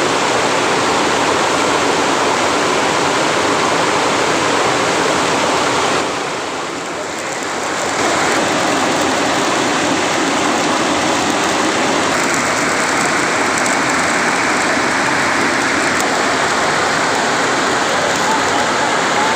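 Loud, steady rush of water from a small waterfall nearby, briefly quieter for about two seconds some six seconds in.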